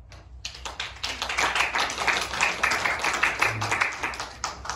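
Audience applauding: a few seconds of hand clapping that starts about half a second in and thins out near the end.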